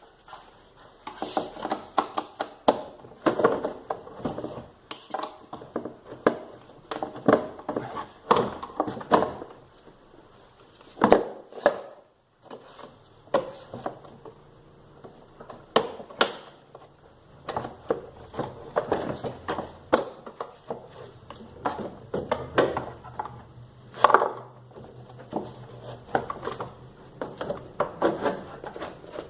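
Irregular clinks, clanks and knocks of hand tools and metal parts being handled, with a faint low hum in the second half.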